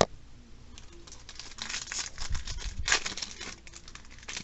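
Foil trading-card booster pack being torn open and crinkled: a dense, crackling rustle for about two seconds in the middle, with fainter crinkles near the end. A single sharp tap comes right at the start.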